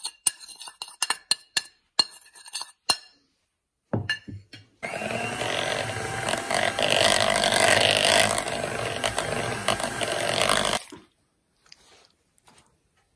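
Electric hand mixer beating butter and powdered sugar into buttercream. It runs steadily for about six seconds and then stops. Before it starts, a metal spoon clinks and scrapes against the bowl as the sugar is knocked in.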